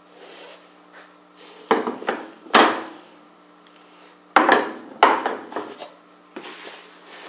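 Steel beam-trolley side plates with their wheels being taken out of a cardboard box and set down on a metal table top: about five heavy clunks with a short ring, amid cardboard handling noise.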